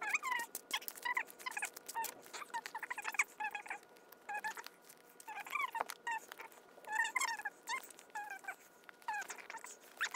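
A girl's voice played back at four times normal speed, so her talking comes out as rapid, high-pitched chipmunk-like squeaks, mixed with quick sped-up clicks and rustles from handling the doll and its clothes.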